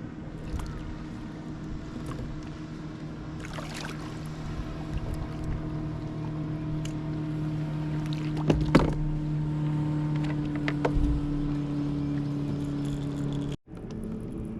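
Electric trolling motor of an Old Town AutoPilot 136 motorized kayak running with a steady low hum that grows slightly louder, then cuts off abruptly near the end. A few knocks on the kayak can be heard over it, the loudest two just past the middle.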